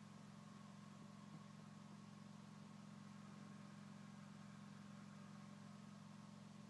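Near silence with a faint, steady low engine hum that does not change.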